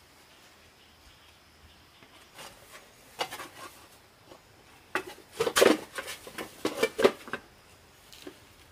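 Handling noise: scattered knocks, then a quick run of louder knocks and rubbing from about five seconds in, like objects being knocked and shifted about.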